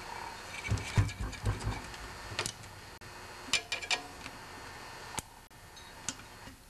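Small clicks and knocks of a hand working a rubber fuel line and its metal spring clip onto a small engine's carburetor. A quick cluster of knocks comes in the first two seconds, then scattered single clicks.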